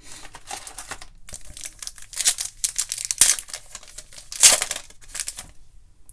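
Foil wrapper of a Donruss Optic football card pack being torn open and crinkled by hand, a run of crackling rips with the loudest tears about two, three and four and a half seconds in.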